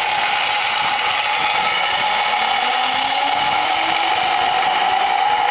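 Zipline trolley pulleys running down the steel cable: a steady whirring whine whose pitch sinks slightly as the rider speeds away.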